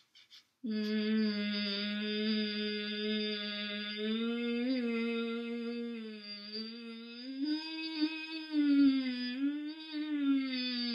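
A woman's voice, with her tongue stuck out and relaxed, holds one steady note from just under a second in. About two-thirds of the way through it glides up a few notes, wavers, and slides back down near the end. This is a pitch-glide exercise done to release tongue tension.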